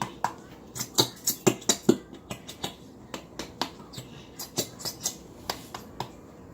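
Slime being mixed in a bowl: irregular sharp clicks, taps and little pops, a few a second.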